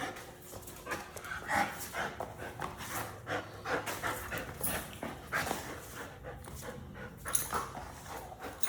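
American bully dog panting hard, about two breaths a second, from exertion some five minutes into a workout.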